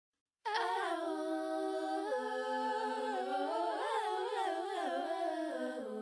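A cappella vocal music: layered voices humming in harmony without instruments, coming in about half a second in and holding long notes that slide from pitch to pitch.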